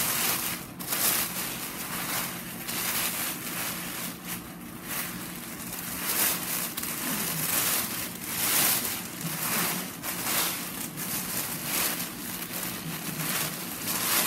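Tissue paper rustling and crinkling in irregular bursts as the layers of a folded stack are peeled apart and fluffed up into a paper flower, over a steady low hum.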